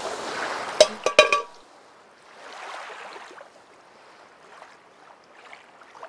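Logo sound effect for an animated end card: a fading whoosh tail with a few bright chiming clicks about a second in. After that comes a faint water-like wash with scattered sparkles.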